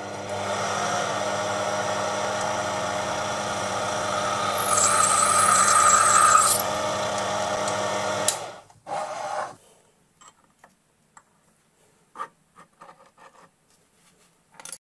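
Proxxon PD 250/e mini lathe running steadily while a twist drill bores into a brass puck, with a high squeal from the cutting for about two seconds midway. The lathe stops about eight seconds in, after which only faint small metallic clicks are heard.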